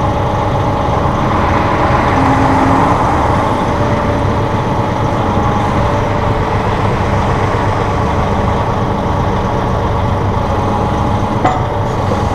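Massey Ferguson 1742 compact tractor's 42-horsepower diesel engine running steadily under hydraulic load while it works the CB75 backhoe's cylinders.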